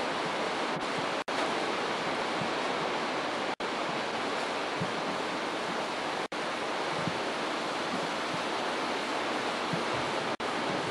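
Steady, even rushing noise with no rise and fall. It cuts out to silence for an instant four times: about a second in, about three and a half seconds in, about six seconds in and near the end.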